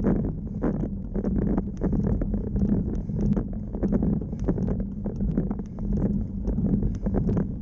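Road bike climbing a steep, rough tarmac lane, heard through a bike-mounted camera: a steady tyre and road rumble with frequent small clicks and knocks from the bike and mount, and some wind on the microphone.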